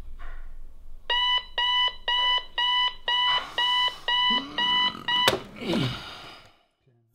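Digital clock radio alarm going off: a run of evenly spaced high electronic beeps, about two a second, starting about a second in. The beeping is cut off by a click about five seconds in as the alarm is switched off.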